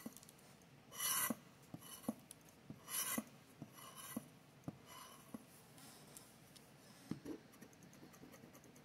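A red plastic scratcher scraping the coating off a paper scratch-off lottery ticket in short strokes about once a second, then only faint light scraping and small taps for the last few seconds.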